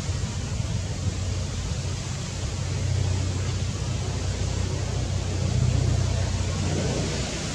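Steady rushing outdoor background noise with a low rumble, swelling slightly a couple of times; no distinct animal calls.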